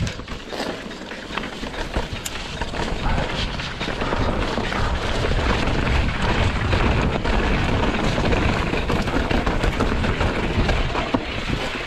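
Wind buffeting the microphone while a mountain bike rattles over a rough trail, its tyres on dirt and many small knocks from the bike. It gets louder about three seconds in.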